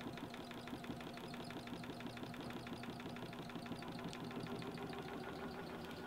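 Electric four-frame centrifugal honey extractor spinning: a steady motor hum with a fast, even ticking.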